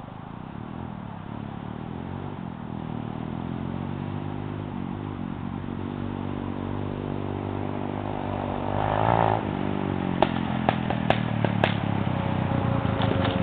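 Kawasaki KLX110 dirt bike's single-cylinder four-stroke engine with an FMF Factory 4.1 exhaust, held at high revs at top speed and growing steadily louder as the bike approaches. Several sharp clicks come about ten seconds in.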